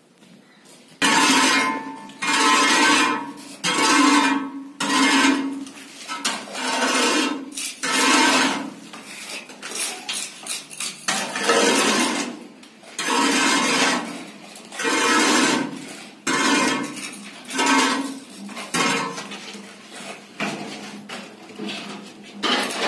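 Metal straightedge scraped along fresh cement plaster in repeated rasping strokes, about one a second, each with a faint metallic ring. The strokes start about a second in.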